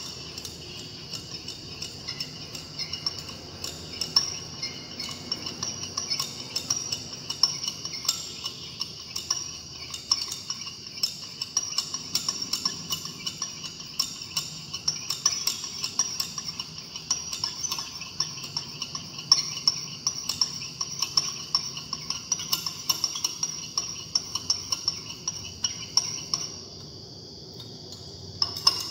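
Glass stirring rod tapping and scraping against the inside of a glass beaker, in quick, uneven clinks, as a liquid mixture is stirred continuously. The clinking stops for about two seconds near the end.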